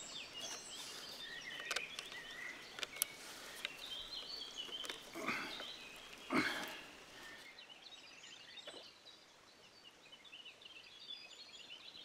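Small birds chirping and singing over a faint rush of forest stream, with a few light clicks and two short dull knocks about five and six seconds in as the wooden stick water wheel is handled.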